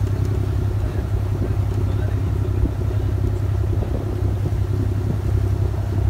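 Boat's engine running steadily, a low drone heard from on board while the boat moves across the water.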